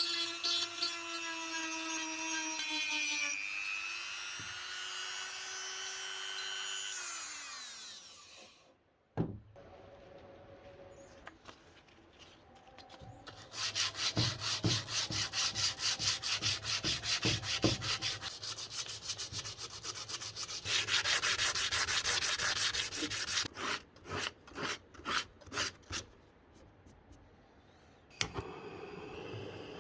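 A power tool's motor whines, dips and rises in pitch, then spins down over a couple of seconds. After a click, rapid rubbing strokes on wood, like hand sanding or rasping, run for about ten seconds, then slow to separate strokes.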